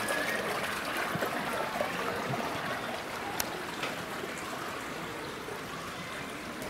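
Steady running water from a pond's water feature, with a single light click about three and a half seconds in.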